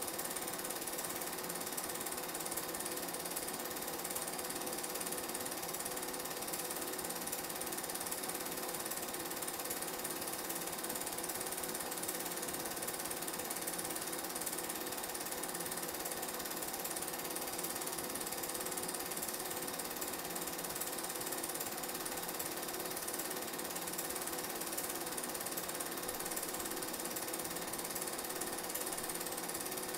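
Film projector running: a steady mechanical whir and clatter from its film-advance mechanism, heard throughout the transfer of the old silent game film.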